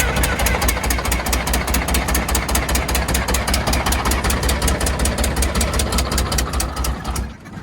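Detroit Diesel 6V92 two-stroke V6 diesel running still cold just after starting, with a rapid, even ticking, about eight a second, typical of its leaking exhaust manifold gasket. The engine stops about seven seconds in.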